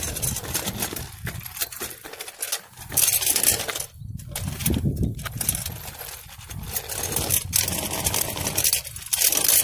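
Rushing wind on the microphone over the rattle and rolling of a child's bicycle moving along the pavement, with irregular clicks and clatters.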